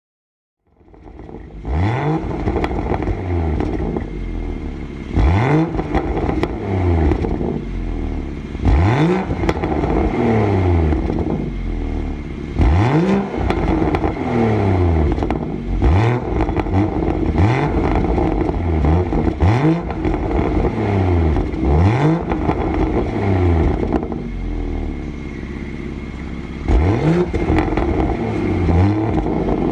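BMW M240i's turbocharged 3.0-litre straight-six revving again and again through a Powervalve Rev III cat-back exhaust. The sound starts about a second in, and each rev rises and falls back, about eight in all, with sharp cracks at several of them.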